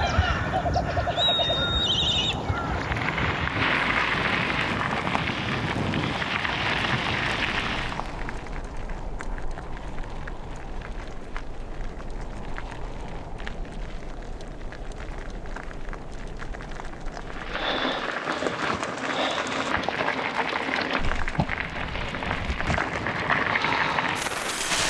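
Wind buffeting an action camera's microphone while a loaded touring bicycle is ridden, a shifting rush that swells and eases, with a sharp gust near the end.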